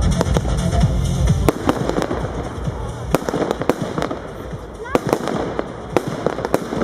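Electronic music with a heavy bass beat stops about a second and a half in. A Bon Fireworks 'Endeavour' firework cake then fires its shots, sharp reports about once a second.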